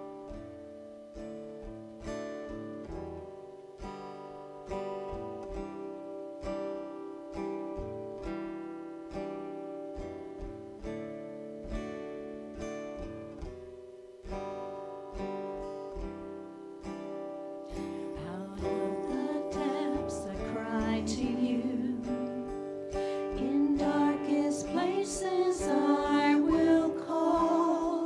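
Acoustic guitar playing a slow, evenly picked intro. About eighteen seconds in, women's voices begin singing a hymn of confession over the band, and the music grows louder.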